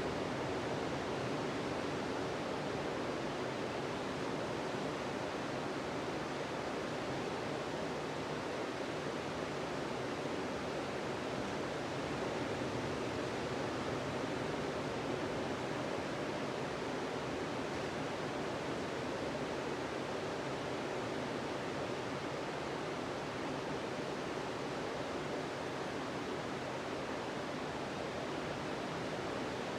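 Ocean surf on a beach: a steady, even wash of waves, with no single breaker standing out.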